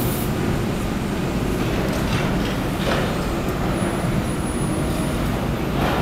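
Commuter train running at a station platform: a steady low rumble, with surges of hiss about two to three seconds in and again near the end.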